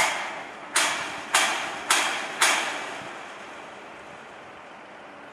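Hammer blows on steel, five of them at a steady pace of about two a second, each ringing briefly. They come as a mobile crane's red lattice jib section is being fitted.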